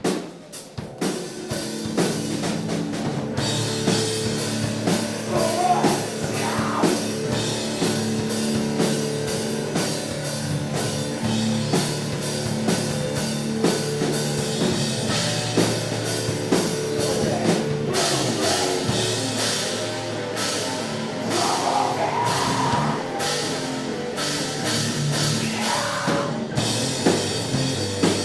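A live rock band plays with drum kit, electric guitar and bass. Drum hits open the passage, the full band comes in with sustained chords about two seconds in, and a voice sings at times.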